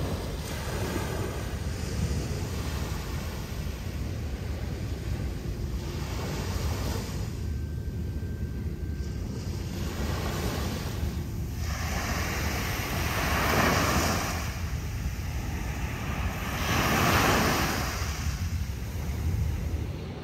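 Sea waves washing onto a beach, the hiss swelling and fading, loudest twice in the second half. Wind rumbles on the microphone throughout.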